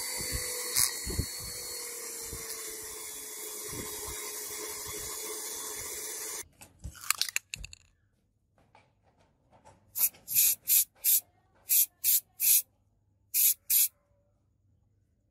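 A handheld rotary tool with a small buffing wheel runs steadily while polishing a steel blade, with its pitch sagging slightly under load, and stops about six seconds in. Later an aerosol can of lacquer sprays in about nine short hissing bursts.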